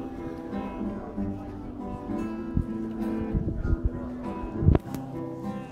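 Acoustic guitar strummed and picked in a slow instrumental passage between sung lines. A few dull low thumps sound over it in the second half, the loudest about three-quarters of the way through.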